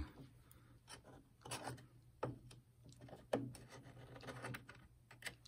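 Faint handling noises: scattered light clicks and short rubbing sounds of small parts being worked by hand while a replacement rubber drive belt is fitted in a stereo's mechanism.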